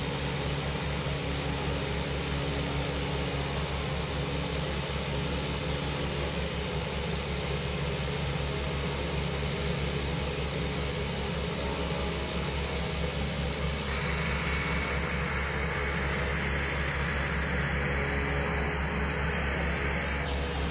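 Cessna Caravan's single turboprop engine running at low power on the ground, a steady hum with a constant turbine hiss over it. About fourteen seconds in, the high hiss grows louder, then drops back just before the end.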